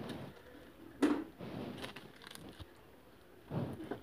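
Clear plastic wrapping rustling and crinkling as it is pulled off and handled against a TV. A sharper bump about a second in is the loudest moment, and a duller bump comes near the end.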